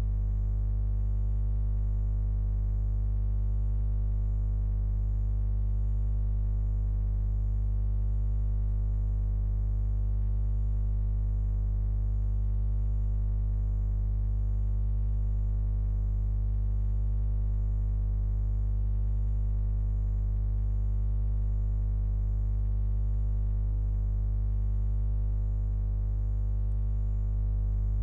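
A steady low electronic drone, one held tone with many overtones that does not change.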